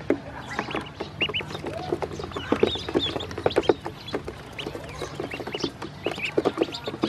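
A group of ducklings peeping, many short, high calls overlapping in quick succession, with small taps mixed in.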